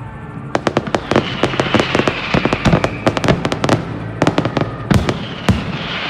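Fireworks going off in rapid volleys of sharp bangs and crackles, starting about half a second in, thickest in the middle, with two heavier single bangs near the end.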